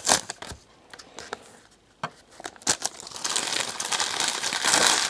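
Foil trading-card pack wrappers crinkling and tearing as packs are opened, with a few sharp clicks of cards being handled. Fairly quiet for a second or so near the start, then dense crinkling from about three seconds in.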